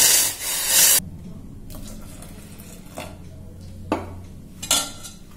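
Boiling water poured from a steel saucepan into raw-rice dosa batter, a loud hissing splash for about the first second. Then a few separate clinks of steel utensils against the steel pot as the batter is handled and stirred.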